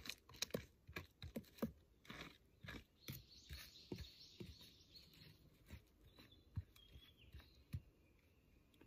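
Small hand tool, a knife-like blade, digging and chopping into soil and wood chips. It makes irregular crunchy stabs and scrapes, several a second at first and fewer toward the end.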